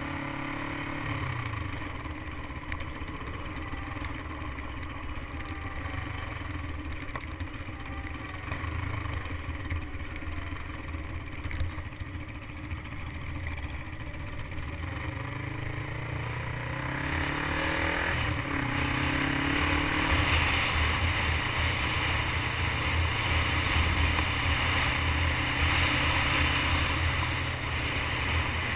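Motorcycle engine running while riding, heard from the bike itself over rushing wind. The engine pitch glides up and down around the middle, and from a little past halfway the wind rush grows louder.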